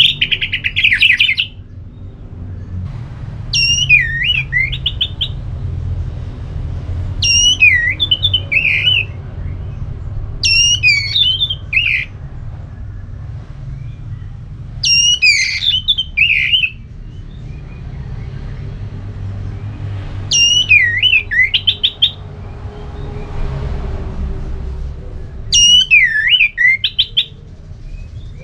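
Orange-headed thrush singing: seven loud phrases a few seconds apart, each a high whistled note sliding down into a quick run of tumbling notes, over a steady low hum.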